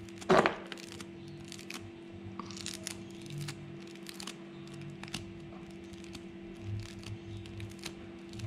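Small clicks and rustles from steel wire strands being worked apart by hand as the end of a pulley cable is frayed into a brush. One sharper knock comes about a quarter second in. A steady low hum runs underneath.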